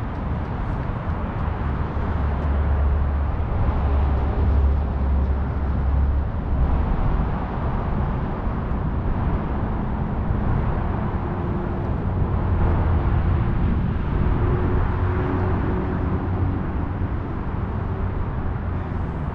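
Steady outdoor background noise of distant road traffic, with a low rumble that swells and fades, strongest a few seconds in.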